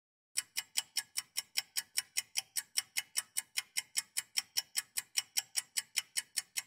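Clock-like ticking sound effect for an on-screen countdown timer, fast and even at about five ticks a second, starting about a third of a second in. It counts down the time the viewer has to decide whether to shoot.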